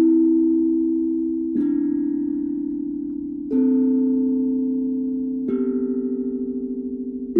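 Steel tongue drum played slowly with mallets: four notes struck about two seconds apart, each ringing on and fading slowly under the next. Picked up by an iPhone 12's built-in microphone, with a lot of background noise under the tone.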